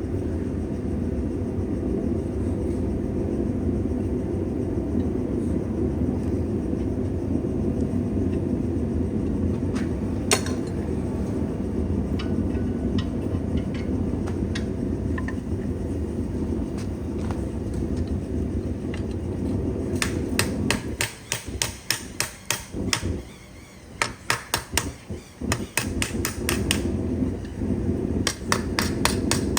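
A steady low rumble, with a single hammer blow on metal about ten seconds in. From about two-thirds of the way through comes a rapid run of hammer strikes, roughly three a second, then a few more near the end: a blacksmith hammering a forged spoon.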